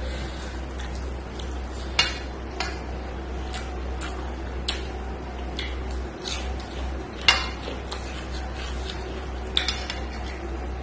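Close-up eating sounds from a meal of rice and curry eaten by hand off a stainless steel plate: fingers working rice against the plate, and chewing. A few sharp clicks stand out, the loudest about two seconds in, in the middle and near the end, over a steady low hum.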